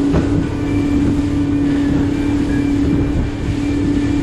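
Boat engine running at a steady speed under way, a constant drone over the rush of wind and water from the hull moving through choppy water.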